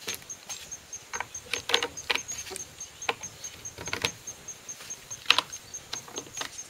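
PVC pipe and fittings of a foam-padded stand knocking and clicking as the supports are pushed onto the tees: a dozen or so irregular sharp taps and scrapes. A faint high pulsing insect call runs underneath.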